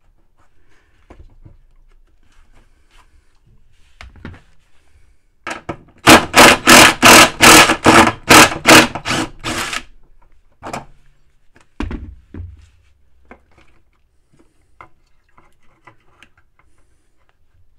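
Cordless impact driver running in short pulses, about three a second, for about four seconds from about six seconds in, backing out a bolt that holds a washing machine motor stator. Handling knocks and clunks of the stator and tool come before and after.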